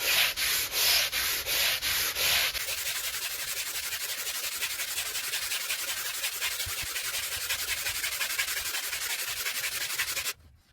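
Hand sanding with a Diablo SandNet mesh abrasive: back-and-forth rasping strokes, about two and a half a second, then after about two and a half seconds a faster, steadier rasp that stops abruptly near the end.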